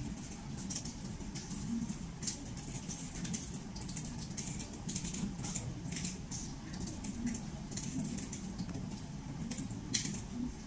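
Fingertips tapping on a smartphone touchscreen: light, irregular clicks, with a sharper one near the end, over a low steady rumble.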